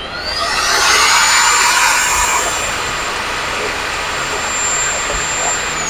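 Electric drill driving a mixing paddle in a bucket of flexible polyurethane foam premix. Its high motor whine dips, climbs back up over the first couple of seconds and then holds steady, over a rushing churn, and eases down slightly near the end as the mixing stops.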